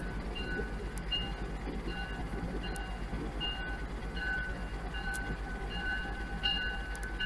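Approaching diesel commuter train, its locomotive bell ringing steadily at about two strokes a second over a low rumble and a steady hum.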